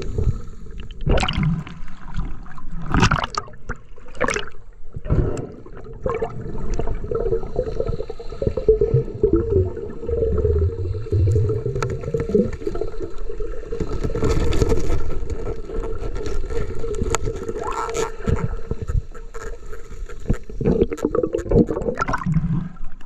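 Muffled underwater noise heard through a camera's waterproof housing: water rushing and gurgling, with scattered knocks and taps.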